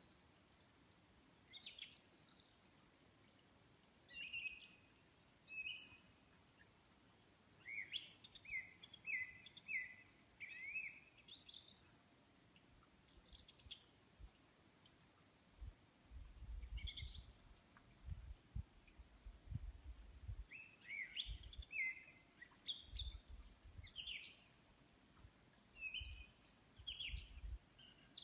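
Songbirds singing in short, separate phrases of chirps and quick falling notes, one phrase every second or two. From about halfway on, a low rumble comes and goes underneath.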